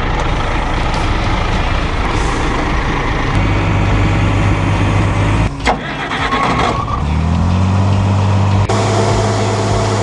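A grain truck's engine started with the key and running. About five and a half seconds in it gives way to a John Deere 4010 tractor's engine, which comes up in speed and settles into a steady run.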